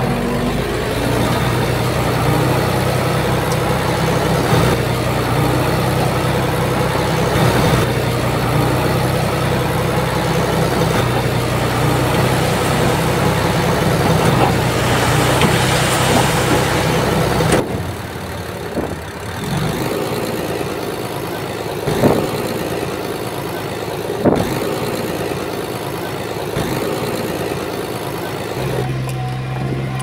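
Komatsu bulldozer's diesel engine running steadily. A little over halfway through, the steady engine note cuts out abruptly, two sharp knocks follow, and the note returns just before the end.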